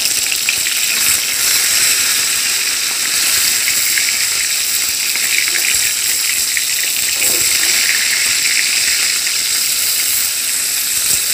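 Fish steaks frying in hot oil in a kadai: a steady sizzle with fine crackling spatters as they are turned over to fry the second side.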